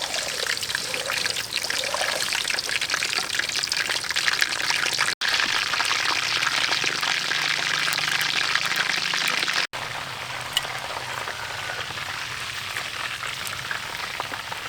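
Chicken pieces frying in hot oil in a pan, a steady dense crackle and sizzle. The sound drops out for an instant twice, at edit cuts.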